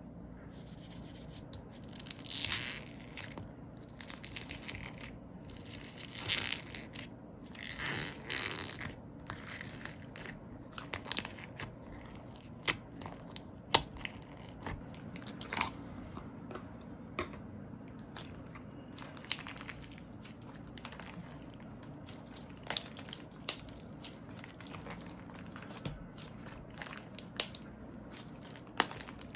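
Slime being squished and poked by hand: crackly squishing for about the first ten seconds, then scattered sharp clicks and pops.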